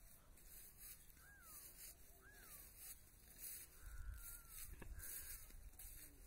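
Faint, thin animal cries, a few of them, each rising and falling in pitch, over a low rumble.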